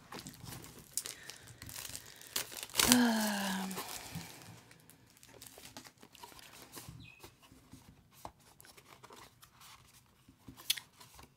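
A small cardboard box of washi tape rolls being handled and worked open by hand: paper and cardboard crinkling, scraping and clicking. About three seconds in comes a short hummed voice sound, slightly falling in pitch.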